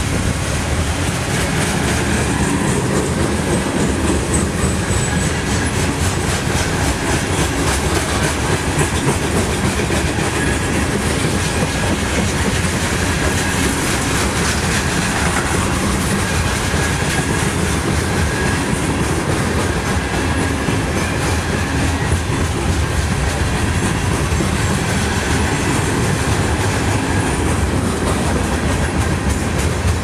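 Freight cars of a slow-moving mixed freight train rolling past close by: a steady rumble of wheels on rail with a continuous clickety-clack over the rail joints.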